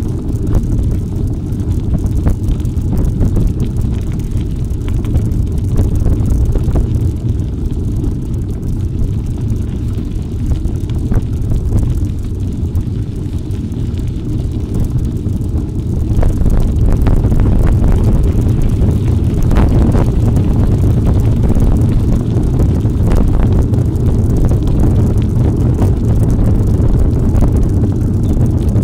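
Wind buffeting the microphone of a camera carried on an off-road bike ride, a heavy low rumble with scattered small knocks. It grows louder about halfway through.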